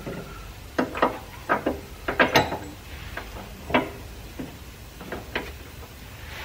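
Irregular metal clicks and knocks, about a dozen, loudest in a cluster a little past two seconds in, from a breaker bar and socket worked on a front lower control arm bolt to turn it the final quarter turn after torquing to 160 Nm.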